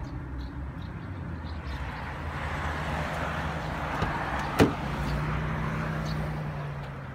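A car door latch clicks open once, sharply, a little past halfway, on an Opel Astra. Underneath runs a steady low hum, with a swell of rushing noise in the middle.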